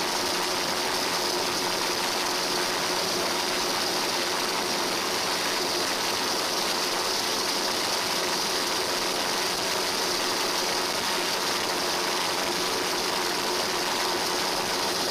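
Steady, unchanging engine drone with a hiss over it and a few faint steady hum tones.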